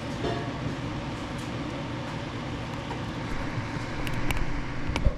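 Steady mechanical hum with a few light clicks and a knock near the end.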